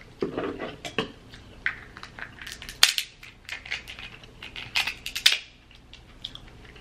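Kitchen shears snipping and cracking through crab-leg shell: a series of sharp crunches and clicks. The loudest comes about three seconds in, with a quick cluster around five seconds.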